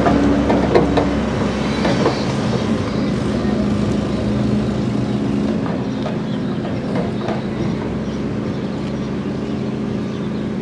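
A large engine running steadily with a low, even hum, with a few scattered knocks and clanks over it.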